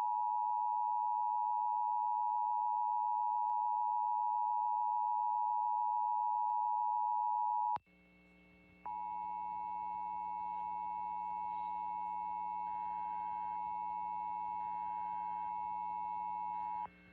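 Emergency Alert System attention signal, the steady two-tone 853 and 960 Hz alarm that marks a required monthly test, sounding for about eight seconds and cutting off abruptly. After a second of steady electrical hum, it sounds again, a little quieter, for about another eight seconds over the hum.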